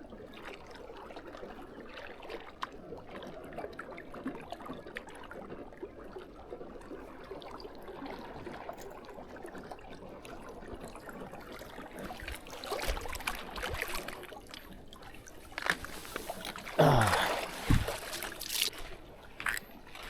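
Water lapping and trickling against a kayak, with a few light knocks and, near the end, a louder brief sound that drops sharply in pitch.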